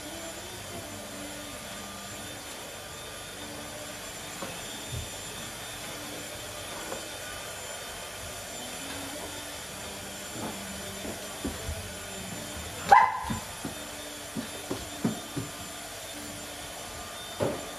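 Samoyed puppies playing with a flirt pole: scattered clicks and scrabbles of paws on a hardwood floor over a steady low background hum, with one short bark about thirteen seconds in.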